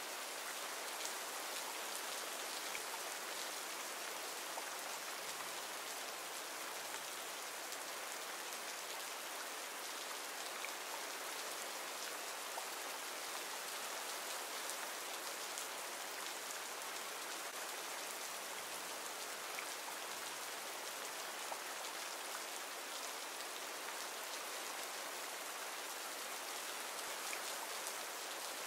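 Steady recorded rain ambience: an even patter of rainfall with faint drop ticks scattered through it.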